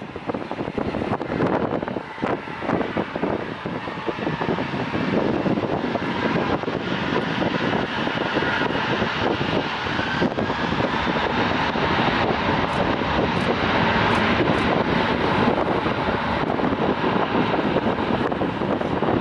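Boeing 747-400's four GE CF6-80C2 turbofan engines spooling up to takeoff thrust during the takeoff roll on a wet runway: the engine noise builds over the first few seconds, then holds at a steady, loud roar, with a faint rising whine around the middle.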